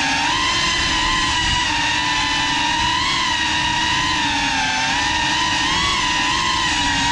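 GEPRC Cinelog 35 ducted cinewhoop drone's brushless motors and propellers whining in flight, a steady buzzing tone whose pitch wavers up and down with the throttle.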